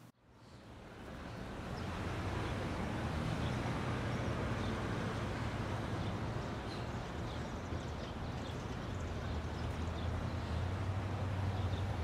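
Outdoor street ambience: a steady low rumble of traffic that fades in over the first second or two and swells near the end, with a few faint high chirps.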